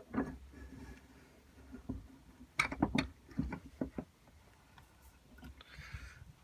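A few knocks and clinks of a small metal pipe being handled and set into a bench vise. Most of them fall between about two and four seconds in.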